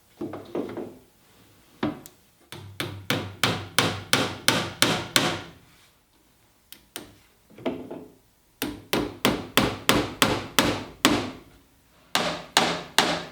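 Hammer tapping finishing nails into a wooden door jamb to tack a router jig in place: several runs of quick, sharp strikes, about four a second, with short pauses between the runs.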